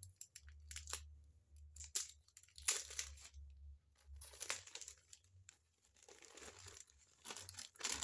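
Plastic packaging crinkling and rustling in irregular bursts as a foil zip-seal pouch is pulled open and a smartphone in a clear plastic bag is drawn out of it.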